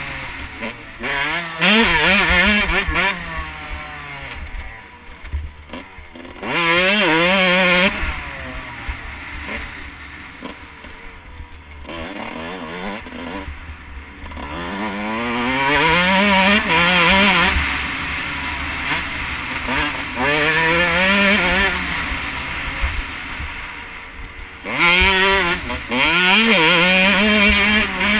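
2012 Husqvarna CR125/144 two-stroke motocross engine revving hard through the gears, its pitch climbing again and again, with quieter lulls off the throttle between loud pulls. A hiss of wind runs over the onboard microphone.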